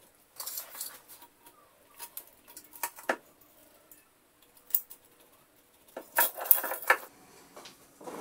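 Small scrapes, taps and clicks from marking out on a granite slab with a mechanical pencil and a steel tape measure, with a louder cluster of scraping and knocking about six seconds in.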